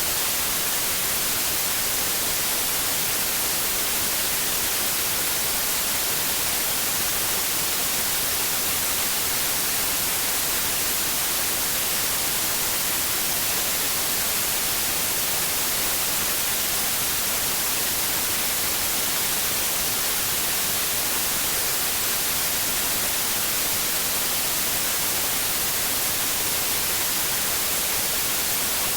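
Steady white noise: an even, unchanging hiss, brightest in the treble, played as a sleep sound for babies.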